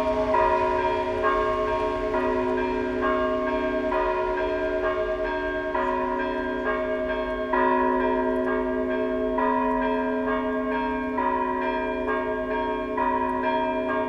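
Russian Orthodox church bells ringing a festive peal: several bells of different pitches struck in quick succession, their tones overlapping and ringing on without pause.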